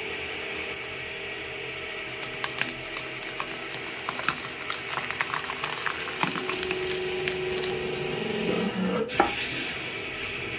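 Hydraulic press crushing a whole cauliflower: the press's pump hums steadily under a dense crackle of florets snapping and breaking apart. One sharp crack near the end is the loudest sound.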